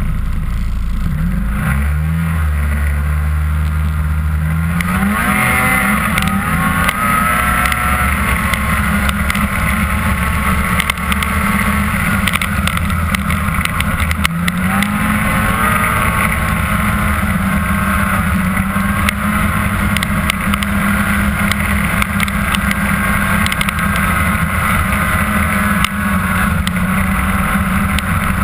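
Ski-Doo MX Z 500SS snowmobile's two-stroke engine running at trail speed. Its pitch climbs as the sled speeds up a couple of seconds in and again about halfway through, and otherwise holds steady.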